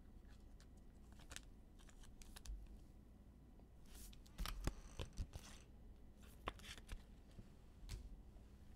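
Baseball cards being handled and laid onto stacks on the table: scattered soft clicks, taps and rustles of card stock, busiest in the middle.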